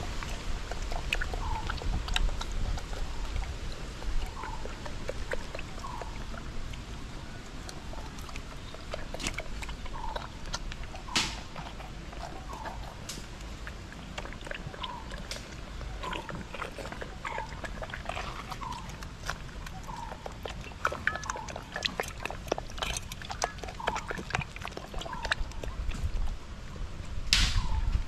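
Jamunapari–Saanen cross goats slurping and eating wet feed from a hand-held steel bowl, with scattered clicks and knocks against the bowl.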